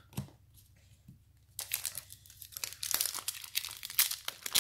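A trading-card pack's wrapper crinkling and tearing as it is opened by hand. It starts about a second and a half in and continues as dense crackling, after a couple of soft clicks of cards being handled.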